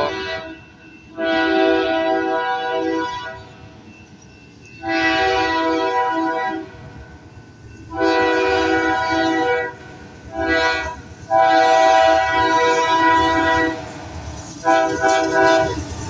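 Diesel locomotive's multi-chime air horn sounding a string of blasts, mostly long with one short one: long, long, short, long, the pattern sounded for a grade crossing. Under the horn is the low rumble of the approaching train, which grows near the end.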